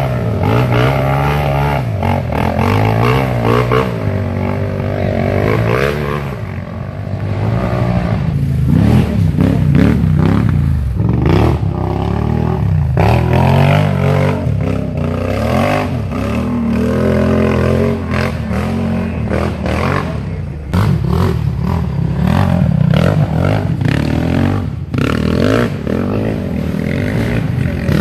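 Several racing ATV (quad) engines revving hard, their pitch rising and falling over and over as the riders throttle on and off, with more than one engine often heard at once.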